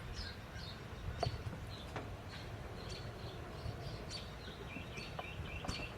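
Small birds chirping, a string of short falling chirps a few times a second, joined near the end by a quicker run of lower chirps, over a steady low rumble.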